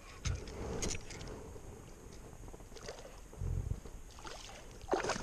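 Water slapping around a plastic kayak, with a couple of dull thumps, while a hooked fish is brought alongside. Near the end the fish thrashes and splashes at the surface next to the hull.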